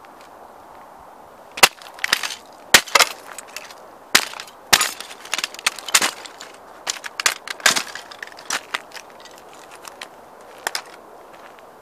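Red Ferrari model toy car cracking and breaking apart under stomping sneakers on gravel. A quick, irregular run of sharp cracks and snaps starts about a second and a half in and thins out near the end.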